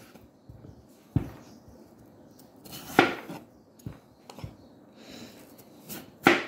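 Chef's knife cutting slices off a peeled raw potato, the blade knocking on a wooden cutting board as each cut goes through: several separate strokes, the loudest about three seconds in and just before the end.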